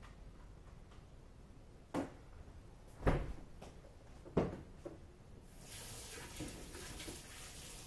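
Kitchen cabinets being opened and shut: three knocks a second or so apart, with lighter clicks between them. A little over halfway through, a tap starts running with a steady hiss.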